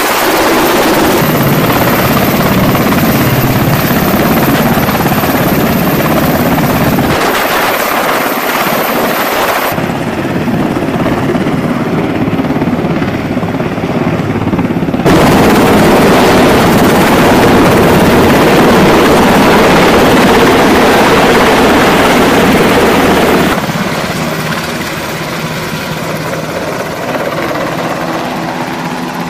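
MH-60S Sea Hawk helicopter hovering low overhead, its rotor and engines making a loud, steady noise. The sound shifts abruptly several times, then fades over the last several seconds as the helicopter moves off with a sling load.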